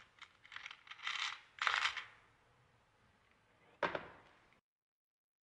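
Small metal jewellery parts clinking and rattling in a plastic compartment organiser box as fingers pick through them, in a few short bursts, then one sharp click about four seconds in.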